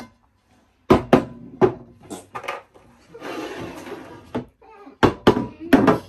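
Large bowls being set down and moved on a tabletop: a string of sharp clunks, a scraping slide in the middle, then more clunks near the end.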